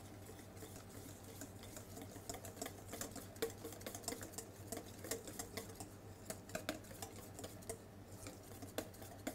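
Faint, irregular clicks and scrapes of a whisk stirring thick potato purée against a stainless steel bowl as softened gelatin is mixed in, several small knocks a second over a low steady hum.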